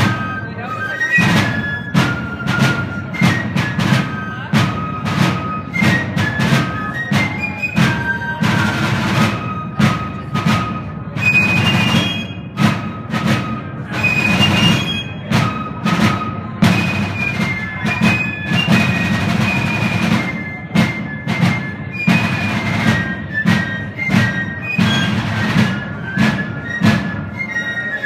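Fife and drum corps playing: several fifes carry a high melody over field drums beating a steady, rapid rhythm.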